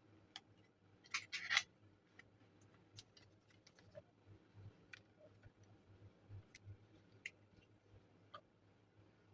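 Faint handling noise from working on a small Bluetooth speaker: scattered light clicks and taps, with a brief scrape about a second in.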